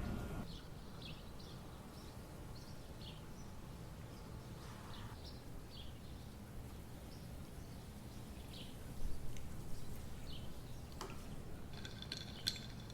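Short, scattered bird chirps over a low steady hum, with a few light clicks or knocks in the second half.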